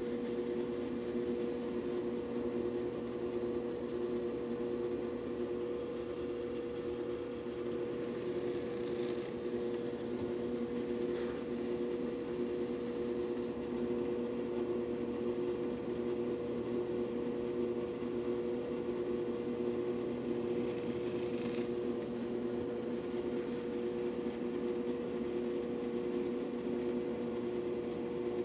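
Benchtop drill press running with a steady motor hum while a brad point bit bores holes through a pattern and plywood.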